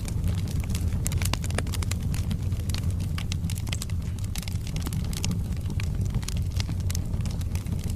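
Wood fire burning in a fireplace: a steady low rumble of the flames with frequent sharp, irregular crackles and pops from the logs.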